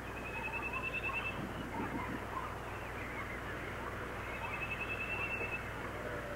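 Small birds chirping, with two short, rapid trills, one near the start and another about four seconds later, over a low steady hum.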